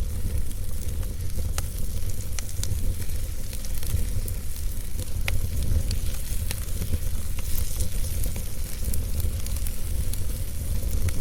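Fire crackling, with frequent irregular sharp pops and snaps over a steady low rumble.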